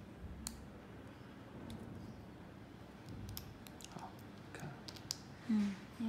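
Scattered small plastic and metal clicks from an SC fiber optic fast connector being handled and worked apart, most of them in the second half. A short voiced hum near the end.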